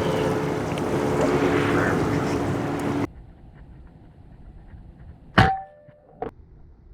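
Boat motor running steadily, cut off suddenly, then a single Hatsan Vectis .25 PCP air rifle shot: a sharp crack with a short metallic ring, followed under a second later by a lighter click.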